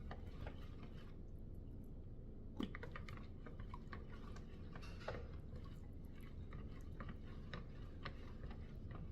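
Faint, scattered small clicks and light taps of hand-handled utensils and containers over a low steady room background, with a couple of slightly louder knocks about two and a half and five seconds in.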